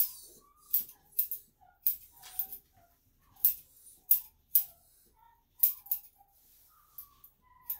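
Grooming scissors snipping through a dog's curly coat: about a dozen sharp, irregular snips, roughly one or two a second.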